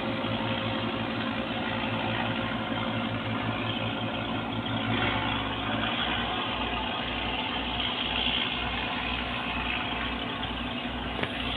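Ship's diesel engine running steadily, with a constant mechanical drone; about five seconds in, a deep low throb sets in, pulsing about one and a half times a second.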